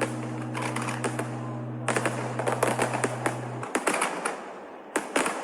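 Fireworks crackling and popping in quick rapid-fire runs, like a string of firecrackers, densest about two seconds in and again near the end.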